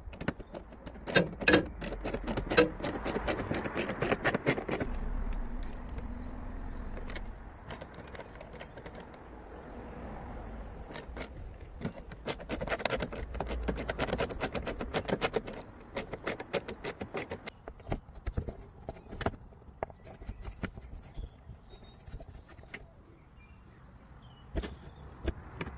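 Socket ratchet with a long extension clicking as bolts around the headlight are turned, in two spells of rapid metallic clicks, with scattered single clicks and knocks between them.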